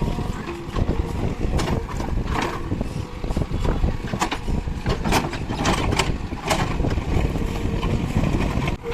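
JCB 3DX backhoe loader's diesel engine running steadily, with irregular sharp mechanical knocks over the rumble.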